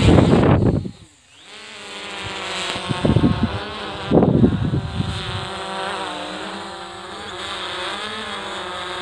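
Eachine EX3 quadcopter's propellers buzzing overhead as it climbs, the pitch of the whine drifting up and down. A few loud low rumbles come over it near the start and again about three to five seconds in.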